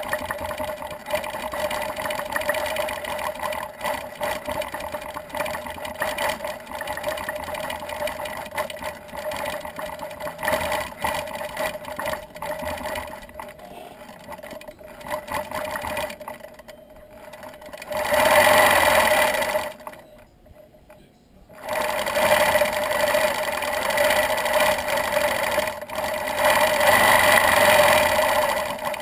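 Gammill longarm quilting machine stitching, its needle running at varying speed. About two thirds of the way through it stops for a second or two, then starts stitching again.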